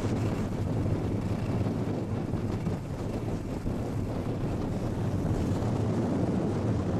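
Steady wind rush on the microphone of a camera carried by a skier moving downhill, mixed with skis sliding over packed snow.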